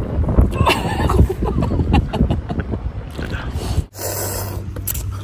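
A boy slurping and chewing ramen noodles, with wind rumbling on the microphone. The sound breaks off sharply about four seconds in, then a steadier low rumble follows.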